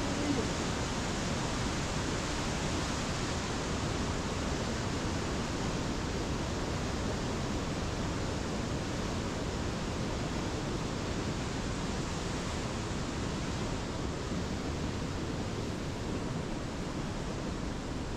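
A flooded, swollen river rushing over rocks: a steady, even noise of turbulent water, easing slightly near the end.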